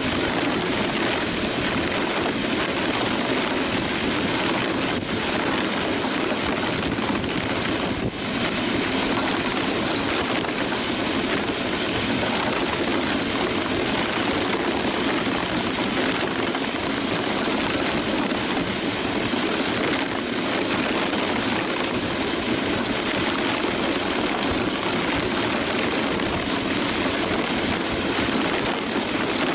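Steady rush of wind on the microphone mixed with the steel runners of a DN iceboat hissing and rumbling over the ice at about 50 km/h.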